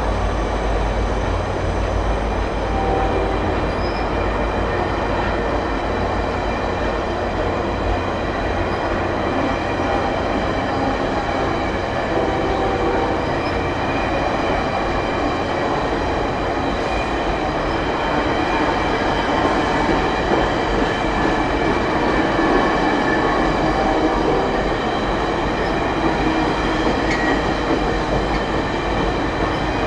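VIA Rail passenger train's stainless-steel cars rolling past, a steady rumble of wheels on rail with a thin, steady high ringing over it.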